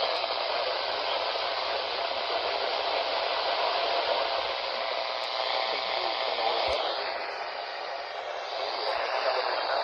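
Radio receiver hissing with static on a weak signal, a faint voice barely audible under the noise. The hiss dips slightly in level about eight seconds in.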